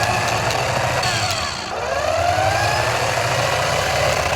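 Toy RC car's electric motor whining, rising in pitch as it speeds up, then dropping back and running up again about halfway through.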